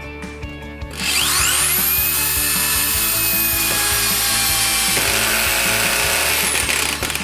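ZUBR DSh-M3-500-2 corded drill-driver running: its motor whine rises as it spins up about a second in, holds steady for about five seconds, then falls away as it runs down near the end.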